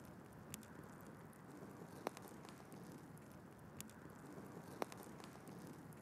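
Wood burning down to embers in a fire pit: a soft, steady low rush with sharp crackles and pops, the loudest about two seconds in and another near five seconds.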